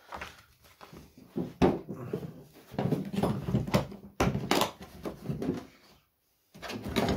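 Paper rustling and handling noises as a printed instruction sheet is moved about and laid down on a wooden table, with a few light knocks.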